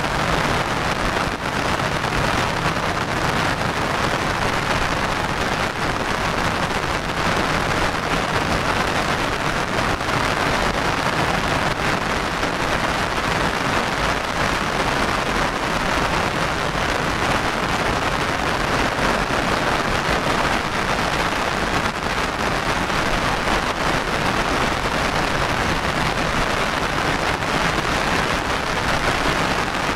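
Heavy rain falling steadily, an even, dense hiss with no let-up.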